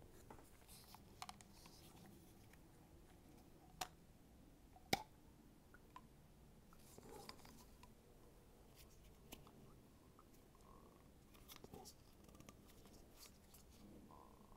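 Near silence with faint clicks and rustles of hand-held tools being worked at the top of a motorcycle fork leg, with two sharp clicks about four and five seconds in.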